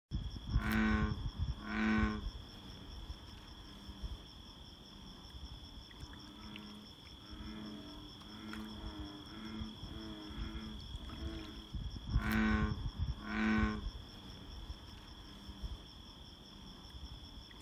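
American bullfrogs calling: two loud, low calls about a second apart near the start and two more about twelve seconds in, with fainter calls from other frogs in between. A steady high insect trill runs underneath.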